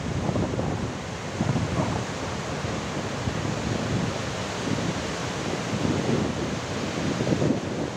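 Rough sea surf breaking on the shore, a steady rushing wash, with strong wind buffeting the microphone in uneven gusts.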